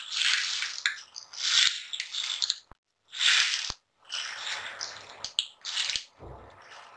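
A small pan of hot tempering oil with mustard and sesame seeds is tipped out and scraped onto khandvi rolls, making about five short rasping bursts with a few clicks.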